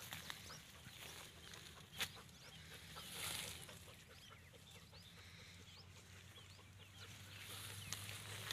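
Faint open-field ambience with scattered short bird chirps, a single sharp click about two seconds in and a brief soft rustle around three seconds.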